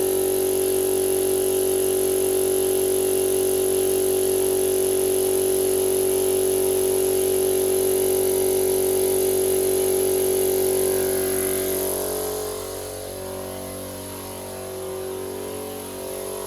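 Small air compressor running steadily with a grating whine while filling an added auxiliary tank. About eleven seconds in its sound fades away, leaving a quieter sound.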